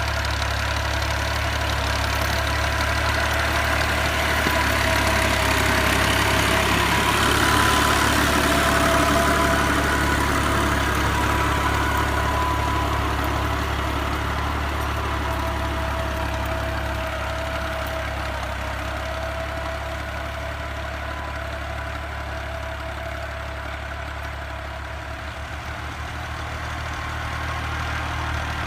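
Fiat 480 tractor's three-cylinder diesel engine running steadily while ploughing. It grows louder to a peak about eight seconds in, then slowly fades, rising slightly again near the end.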